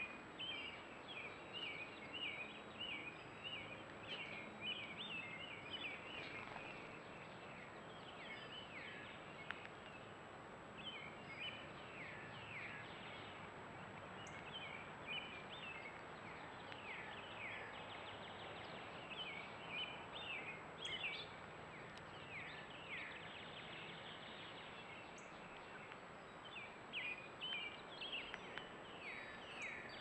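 Songbirds calling outdoors: clusters of short, high, downward-sliding chirps come and go over a steady background hiss, picked up by a trail camera's microphone. A faint steady high-pitched tone runs underneath.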